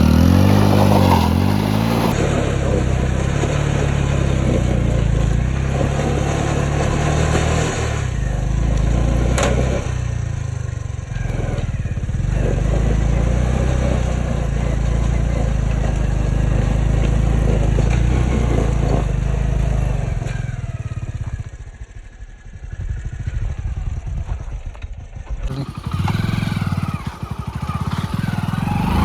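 Hero Splendor motorcycle's small single-cylinder four-stroke engine running under way. It revs up and down in the first couple of seconds, then holds a steady drone. It drops off about three-quarters of the way through and picks up again near the end.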